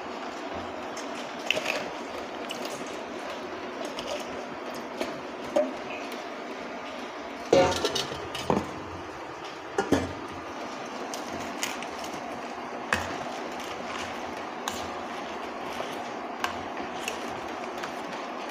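Metal clinks and knocks against a stainless steel cooking pot as greens are pushed down and turned with tongs, with a louder clatter about seven and a half seconds in and another near ten seconds, over a steady hum.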